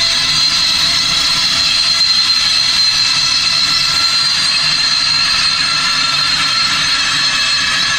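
Steam locomotive 01 1066 giving off a loud, steady hiss of escaping steam with a high ringing tone in it, no exhaust beats.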